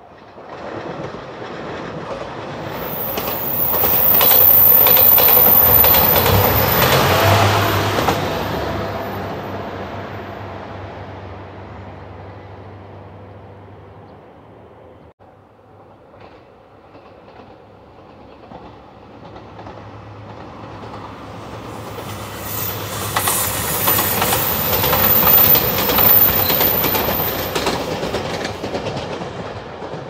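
Two trains passing on the line. Each rumbles up to a peak with rhythmic wheel clatter over the rail joints and then fades away. The first is loudest about five seconds in, the second about twenty-five seconds in.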